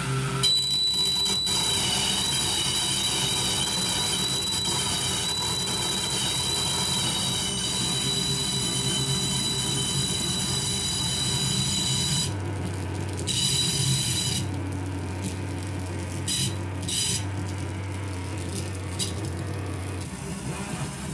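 Electronic noise music from a table of effects pedals and patched gear, played through PA speakers: a steady high-pitched squeal of several close tones over a low drone. About halfway through the squeal drops out, leaving a low hum, and the hiss above it cuts off and returns several times.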